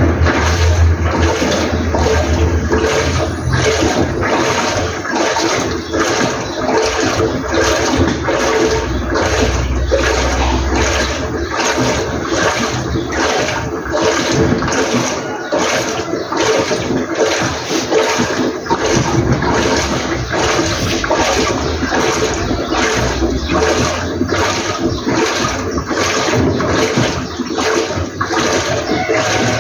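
LG inverter direct-drive top-load washing machine agitating: water and clothes churning in the tub in a steady, even rhythm of strokes.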